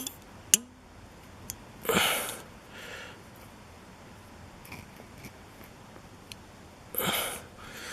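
Small metal clicks and ticks of a lock's plug being worked out with a tight shim, one sharp click about half a second in with a brief ring after it. Two breaths through the nose, about two seconds in and near the end.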